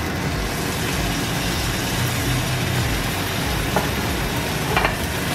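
Double-bone lamb chop sizzling steadily as it sears in hot olive oil in a frying pan, with a couple of sharp pops near the end.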